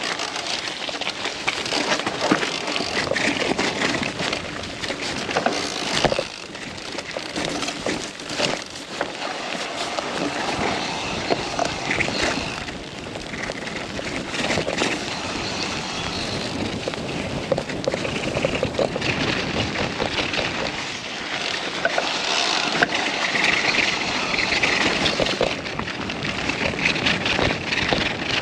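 Mountain bike riding over a rough, muddy trail: a continuous clatter of knocks and rattles over steady rolling noise.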